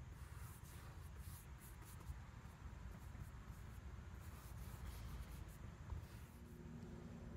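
A paintbrush loaded with oil paint dragging across a canvas in short, faint, scratchy strokes, over a low rumble. A faint steady low hum comes in near the end.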